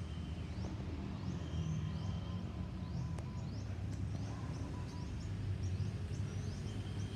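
Small birds calling with short rising chirps, repeated every second or so and more often near the end, over a steady low rumble.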